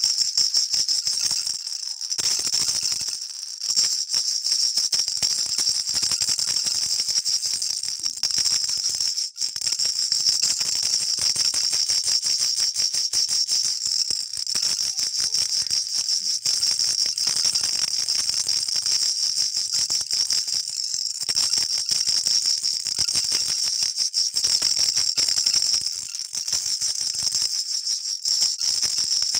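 Baby rattle (jhunjhunu) shaken rapidly and without letting up, a dense, high jingling rattle with a few short dips.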